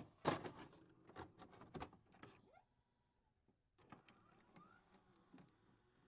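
Faint handling noise: a few sharp clicks and taps in the first two seconds, then almost nothing for about a second, then softer scattered ticks.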